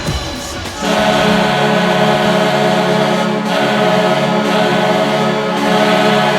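A noisy tail of another arena recording cuts off, and about a second in the San Antonio Rampage's arena goal horn starts. It sounds one long, steady blast with a rich stack of harmonics.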